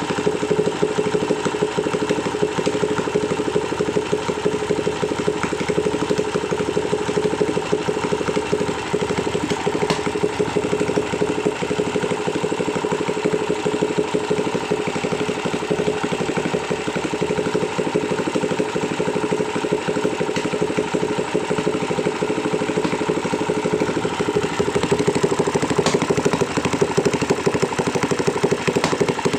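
Kawasaki Ninja motorcycle engine idling steadily at an even pitch.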